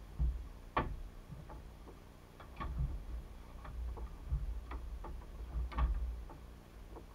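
Irregular sharp clicks and taps, a dozen or so, with low bumps underneath, from hands and gear knocking on the fibreglass deck and fittings of a small fishing boat while a landed fish is handled.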